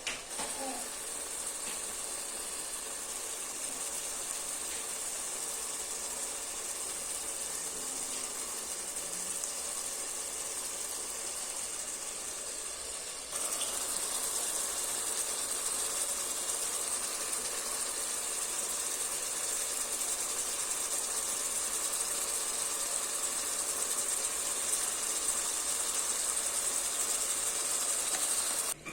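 Fish frying in hot oil: a steady sizzle with faint crackles that steps louder about halfway through and cuts off suddenly near the end.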